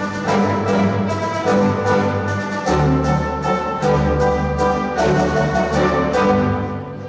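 Orchestral music with brass and strings over a steady beat, playing as a dance routine's accompaniment.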